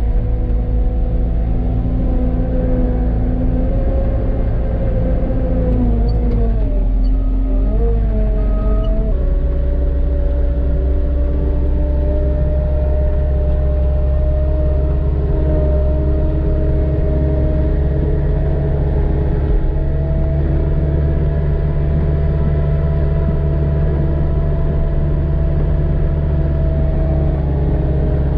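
Skid steer's diesel engine running hard under load, its pitch sagging and wavering about six to nine seconds in, then holding steady.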